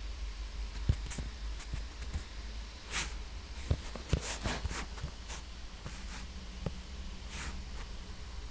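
Scattered soft taps and knocks from fingers handling a tablet's touchscreen while drawing, over a low steady room hum, with a couple of short breathy hisses.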